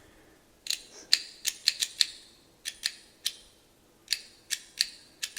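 Small, sharp metallic clicks, a dozen or so at uneven intervals of about one to three a second, from the freshly reassembled Eveready automatic petrol lighter mechanism being handled.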